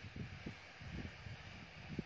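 Wind buffeting the microphone in low, uneven gusts.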